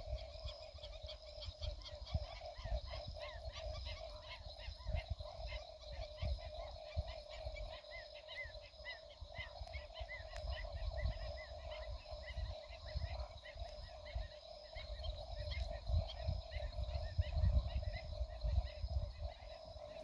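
Night chorus of frogs and insects: a steady trilling at a middle pitch with rapid, repeated high chirps and thin steady whines above it. Low, irregular rumbling runs underneath and grows stronger near the end.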